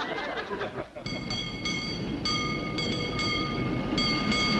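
Audience laughter dying away, then from about a second in a run of high steady electronic tones that switch on and off in a rhythm over a low rumble.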